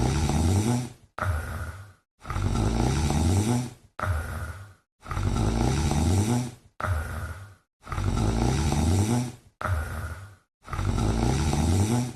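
A sleeping domestic cat snoring in a regular rhythm, about four breaths. Each is a longer, low, wavering snore followed by a shorter, higher-pitched breath, with dead silence between them.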